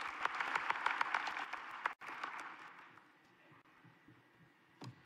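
Audience applauding, a dense patter of many hands clapping. The applause cuts off abruptly about two seconds in, then thins to a few scattered claps and dies away.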